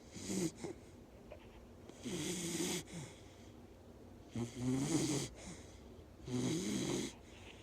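Bull terrier snoring in its sleep: a brief snore, then three longer snores about two seconds apart, each a rattling pitched snore with breathy hiss, with quiet breathing in between.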